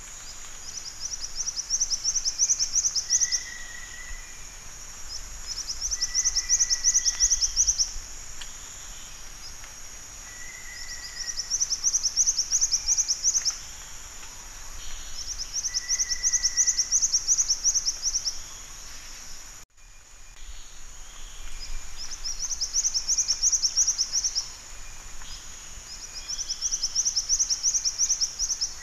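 Black-winged flycatcher-shrike singing: six rapid, high trilled phrases about two seconds each, coming every four to five seconds, most of them introduced by a short lower note. A steady high hiss of insects runs behind, and the recording drops out for a moment about two-thirds of the way through.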